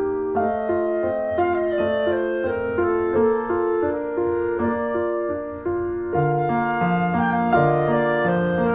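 Instrumental background music: a melody of held keyboard-like notes, with a lower bass line joining about six seconds in.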